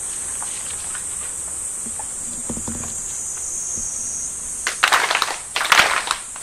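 A steady high-pitched insect drone throughout; about five seconds in, a group of people clap their hands twice, each clap a ragged burst of many hands, the two ritual claps (kashiwade) of Shinto prayer at a shrine.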